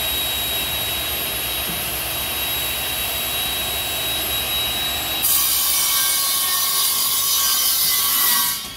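Vertical panel saw running with a steady whine; about five seconds in it gets louder and brighter, with several new whining tones, as the circular saw goes into the plywood sheet, then cuts off just before the end.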